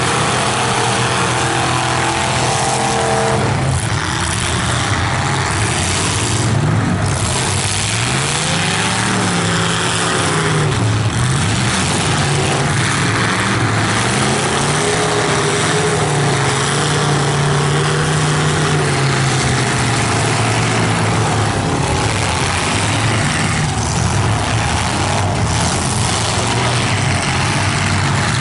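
Unmuffled engines of full-size demolition derby cars running and revving, their open exhaust pipes jutting up through the hoods. The pitch rises and falls several times as the cars drive and push. A few sharp bangs come through, from cars slamming into each other.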